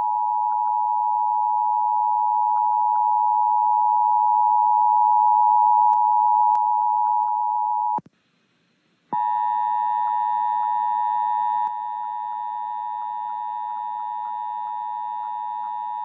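Emergency Alert System attention tone: a steady high electronic tone held about eight seconds, cutting out for about a second, then sounding again for about eight seconds more. The second time it carries faint regular ticks and drops a little in level partway through.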